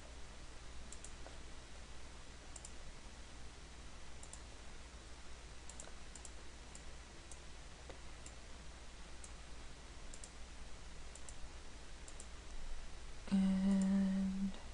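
Faint computer mouse clicks, scattered singly and in pairs, over a low steady hum. Near the end comes a steady hummed tone lasting about a second.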